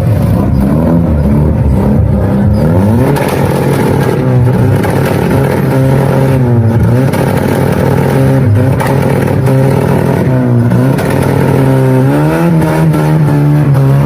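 Modified Chevrolet Kadett's engine revved again and again through a loud aftermarket exhaust: about six revs that rise and fall in pitch, over a steady low engine drone.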